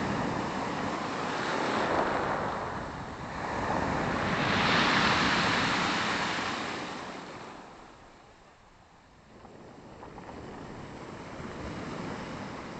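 Black Sea waves breaking and washing on the shore: two surges of surf, the larger about five seconds in, then a lull before the next wave builds near the end.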